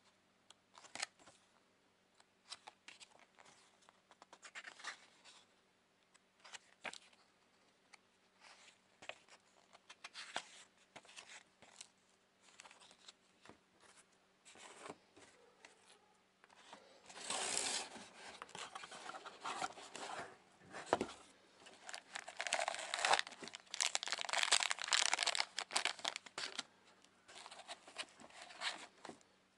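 Paper and cardboard packaging being handled: light scattered rustles and clicks, then, about halfway through, several seconds of louder crinkling and rustling as hands work inside the box.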